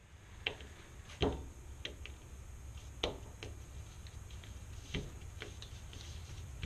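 Light, irregular clicks and taps as a steel ice pick shaft, a brass handle and a plastic handle are picked up and set down on a padded bench mat, the sharpest tap about a second in, over a low steady hum.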